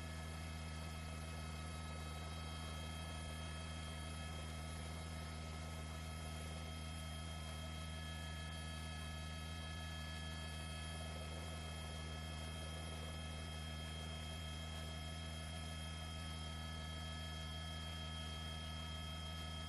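A steady, unchanging hum with several faint high steady tones over a light hiss.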